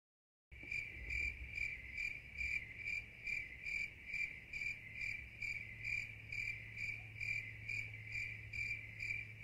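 A cricket chirping steadily, about two high chirps a second, over a low steady hum.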